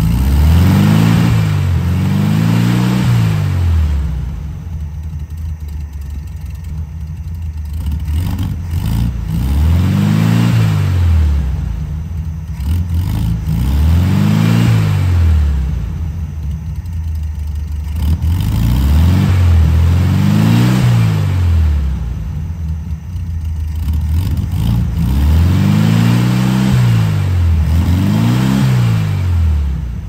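1972 Volkswagen Beetle's air-cooled flat-four engine, freshly cold-started, revved over and over: the pitch rises and falls about ten times with idling in between. It runs smoothly without misfire or backfire, its shaky misfire cured by tightened spark plugs and properly seated plug wires.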